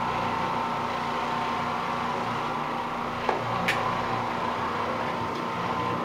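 Oreck Orbiter floor machine running steadily with its nylon carpet brush scrubbing dry carpet: a constant motor hum with a steady tone. Two brief clicks about half a second apart come a little past halfway.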